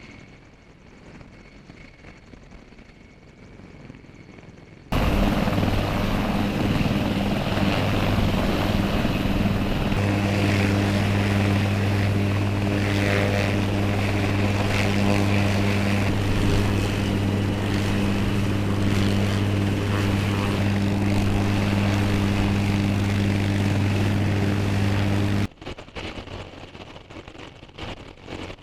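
Helicopter running with a loud, steady, droning hum that cuts in suddenly about five seconds in and cuts off suddenly near the end.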